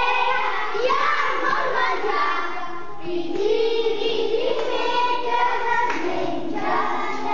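A group of young children singing a Catalan playground game song, holding long notes.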